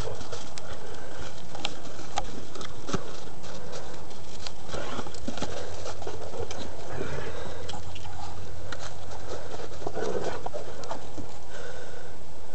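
Dogs play-fighting: paws scuffling and claws clicking in quick, irregular taps.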